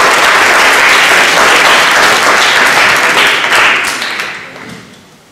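Audience applauding, a dense clapping that fades away near the end.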